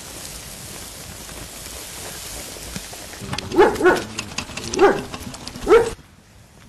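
A dog barking four times in the second half, short sharp barks, over a steady hiss. The hiss falls away near the end.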